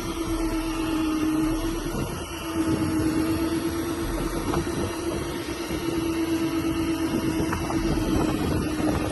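Outboard engines idling: a steady, even hum.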